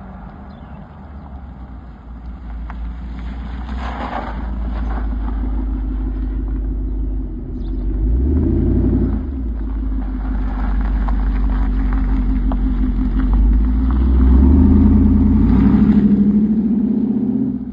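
2026 Dodge Durango's engine and exhaust revving: the pitch climbs to a peak, drops off sharply partway through, then builds again and gets louder toward the end before cutting off.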